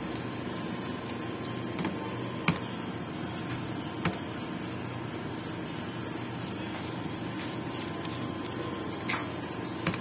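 A handful of short, sharp clicks of computer keys being pressed, spread out with long gaps, over a steady background hum.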